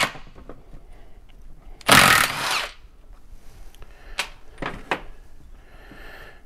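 Cordless driver spinning a 15 mm perimeter bolt out of a transfer case housing in one short run of under a second, about two seconds in. A few light knocks follow.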